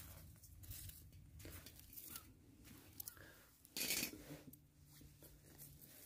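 Wild herbs, mugwort among them, being plucked by hand: faint tearing and rustling of leaves and stems, with a louder rustle about four seconds in.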